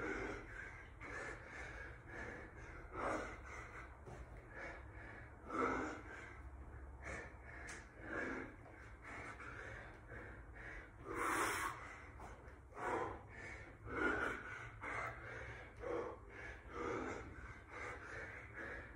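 A man breathing hard from exertion during push-ups, a loud exhale every second or so, with one sharper, louder breath about eleven seconds in.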